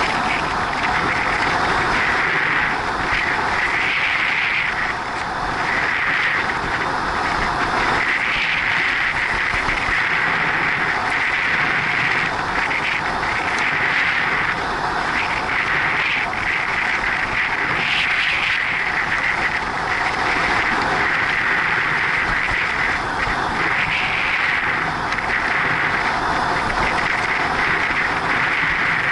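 Steady rush of wind buffeting the action camera's microphone, mixed with bicycle tyre noise on rough asphalt, at a riding speed of about 45 km/h. The hiss swells and eases every second or so.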